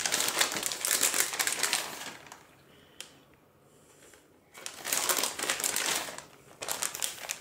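Plastic packet of grated cheese crinkling as cheese is taken out and scattered over the pasta, in two bouts of rustling with a quiet gap of about two seconds in the middle.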